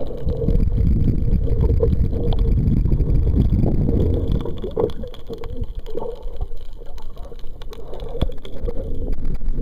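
Muffled underwater sound picked up by a submerged camera: a steady low rumbling of water with scattered faint clicks and knocks.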